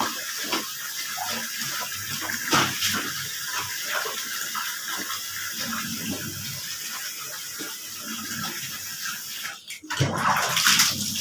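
A soaked, soapy blanket being scrubbed by hand and trodden underfoot on a wet concrete floor: irregular sloshing and squelching of wet cloth and water. It drops out briefly just before the end, then comes back louder.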